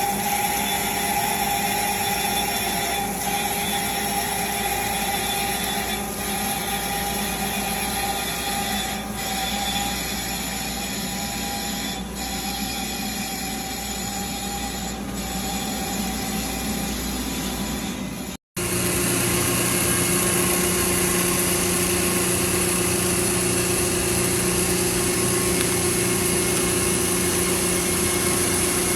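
Grinding machine running steadily as it grinds a lathe live centre's shaft: a steady whine over motor hum. About two-thirds of the way through, the sound cuts out for an instant and comes back steady at a lower pitch.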